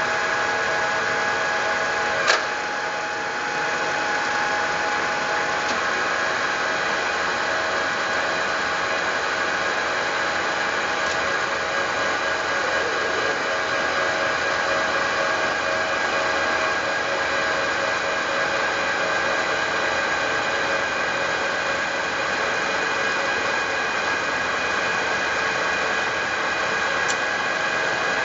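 Milling machine running steadily: an even mechanical noise with several held tones from the motor and drive. A single sharp click about two seconds in.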